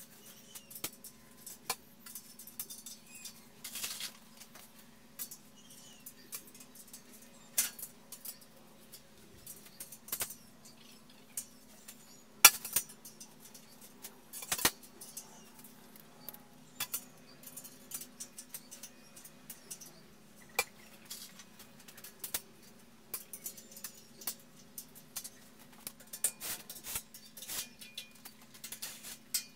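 Small metal parts clinking and knocking now and then as hardware is handled and fitted along a steel frame rail and an aluminium extrusion, one sharper knock about halfway through, over a steady low hum.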